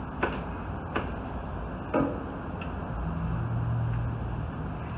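Three sharp metal knocks about a second apart, the last the loudest, as the front bumper reinforcement bar is handled and fitted against the car's front end. A low steady hum follows later on.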